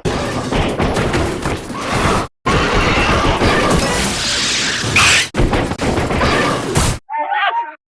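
A string of sound-effect clips edited back to back: dense, loud, noisy sound that cuts off sharply to silence three times, then a short pitched call lasting about half a second near the end.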